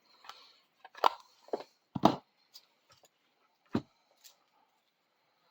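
Handling sounds: about six separate clicks and light knocks as small hard objects are picked up and set down, most in the first two seconds and the last just after four seconds.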